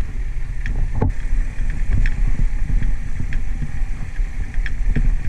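Motorcycle engine running as the bike jolts over a loose, rocky track, with repeated knocks and rattles from the stones and the bike, the sharpest about a second in.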